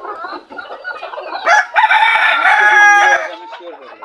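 Bantam chickens clucking, then a rooster crows once for about a second and a half, starting about a second and a half in. The crow is the loudest sound. Softer clucking follows.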